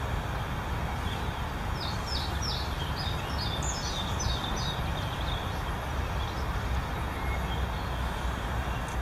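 A songbird sings a quick phrase of high, descending whistled notes starting about a second and a half in and lasting some four seconds. It sits over a steady low rumble of city traffic noise.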